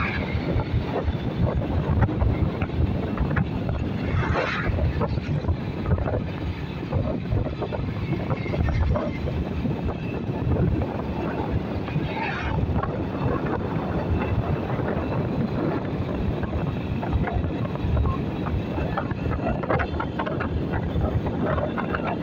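Wind buffeting the microphone over the running engine of a Honda motorcycle ridden at speed. Two brief rushes come about four and twelve seconds in, the second as an oncoming car passes.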